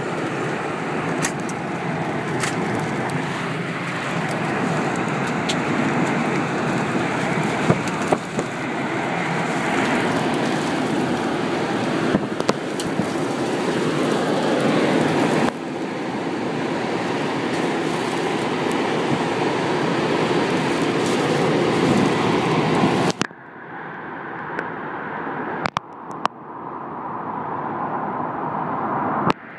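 Loud roar of an F5 tornado's wind buffeting the microphone, scattered with sharp clicks and knocks of flying debris. About three-quarters of the way through the sound drops away abruptly, then builds again.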